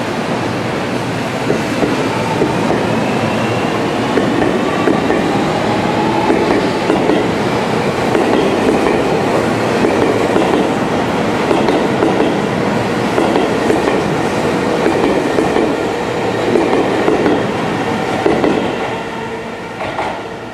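Seibu 40000-series electric train pulling out and gathering speed, its motors whining and rising in pitch, with wheels clacking over rail joints as the cars run close past. The sound falls away near the end.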